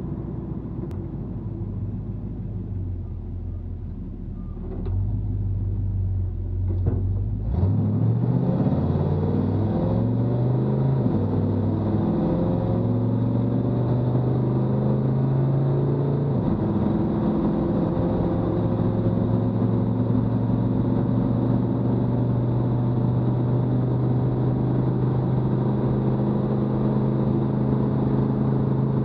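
A 1959 Chevrolet Apache 3600's 350 cubic inch small-block V8, heard from inside the cab, accelerating hard from a roll to about 100 km/h through its TH350 three-speed automatic. The engine note holds level for the first several seconds, then climbs and gets louder as the throttle opens. It drops back twice at the upshifts, around 11 and 16 seconds in, then runs steadily in top gear.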